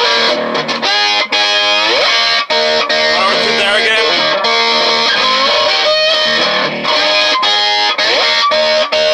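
Electric guitar played with a slide through an amplifier, sustained notes sliding up and down in pitch. Some notes drift out of tune, which the player says is not the guitar's tuning.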